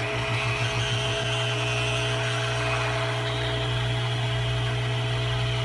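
Hot air rework station blowing on a circuit board to melt the solder under small resistors: a steady hiss of air over a motor hum. A low hum pulses rapidly at first and turns steady about a second in.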